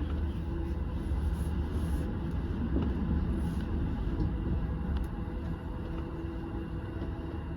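Electric commuter train running along the track, heard from inside the front car: a steady low rumble of wheels on rail with a faint even hum.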